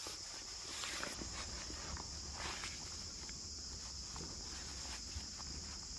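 Steady high-pitched chorus of crickets or similar insects in the woods, with a few soft rustles like footsteps in leaf litter.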